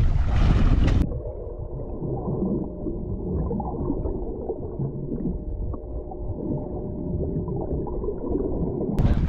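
Wind buffeting the microphone above water, then about a second in it switches to a muffled underwater sound: low gurgling water churn with a faint steady hum, dull and without any high sounds, until the loud wind noise returns near the end.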